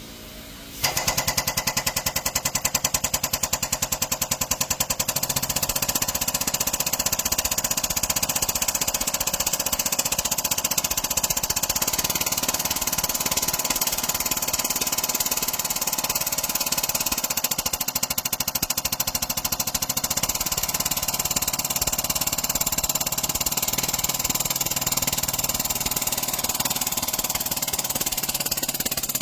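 Rapid, continuous hammering of a pneumatic air hammer, running steadily after starting about a second in, as it works to free a stuck fuel injector.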